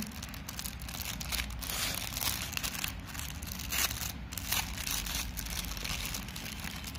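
Thin clear plastic packet crinkling in a run of irregular rustles as hands handle and open a bag of coloured wooden ice cream sticks.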